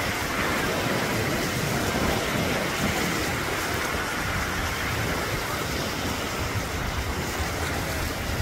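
Steady wash of ocean surf breaking in the shallows, with wind rumbling on the microphone.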